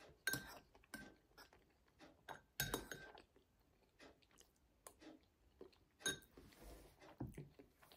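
Close eating sounds: a metal spoon clinking against a ceramic bowl, with three sharper ringing clinks, and soft chewing between them.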